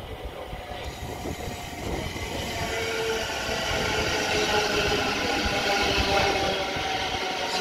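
A Thameslink Class 700 electric multiple unit pulls into the platform and slows, growing steadily louder as it draws near. It gives a whine of several steady tones over a low rumble.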